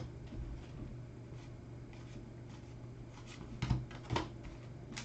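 Faint handling of baseball trading cards, cards sliding and tapping as they are flipped through a pack, with two louder taps about three and a half and four seconds in, over a low steady hum.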